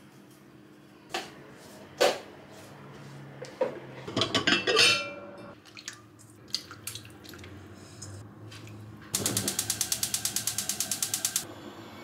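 Gas cooktop burner's electric igniter clicking fast and evenly, about nine clicks a second for a little over two seconds, until the burner lights under the pot. Earlier, a few knocks and a brief clatter of kitchen handling.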